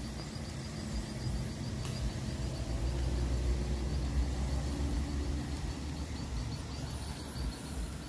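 Outdoor ambience: a steady low rumble that grows a little louder midway, with a faint high-pitched chirp repeating several times a second.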